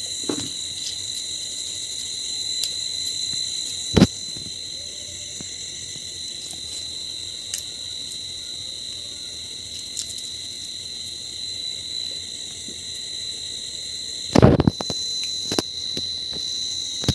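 A steady high-pitched tone runs throughout. Over it, hands handle fiddlehead ferns on banana leaves, with one sharp knock about four seconds in and a short burst of clatter near the end.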